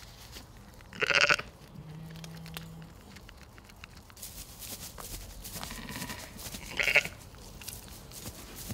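Sheep bleating: two short, loud bleats, one about a second in and another near seven seconds.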